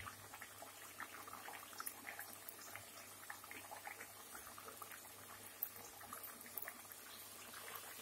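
Mathri deep-frying in hot oil in a steel kadhai over a low flame: a faint, steady sizzle with many small scattered crackles and one slightly louder click past halfway.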